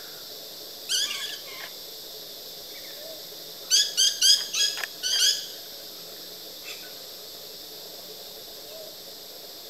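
Black-winged lory calling: one short call about a second in, then a quick series of about five loud calls around four to five seconds in, over a steady high hiss.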